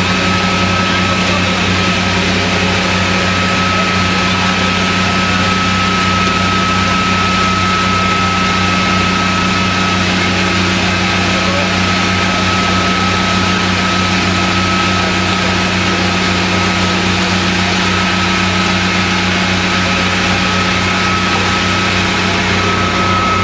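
Fire engine running steadily to drive its pump while it supplies a charged hose line, a constant engine hum with a steady high whine over it.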